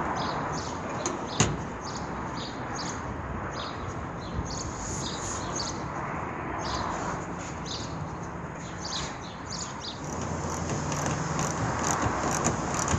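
Outdoor ambience: a steady background hiss with small birds chirping again and again, and a sharp click about a second and a half in. Near the end comes a quick run of light, evenly spaced clicks from a socket ratchet tightening the bolts of a flue flashing on a metal van roof.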